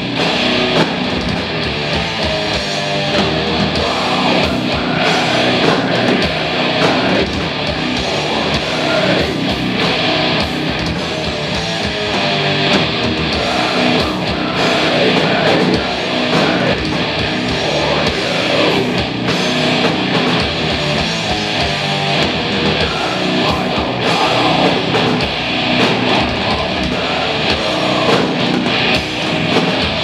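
A heavy metal band playing live, electric guitars over a drum kit.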